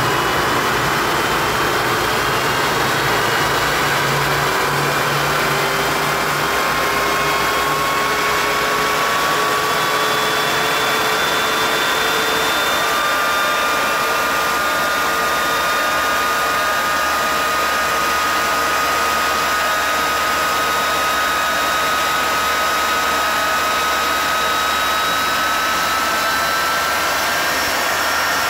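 Westinghouse J34 turbojet running, heard from in front of its intake: a loud, steady rush of air with a turbine whine that slowly rises in pitch as the engine speeds up.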